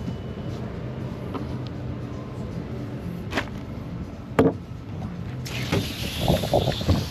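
A couple of sharp knocks from a knife and fish frames being handled at a fish-cleaning table over a steady low hum. Then, after a cut, a wheelbarrow wheel knocks over wooden dock boards several times, with wind on the microphone.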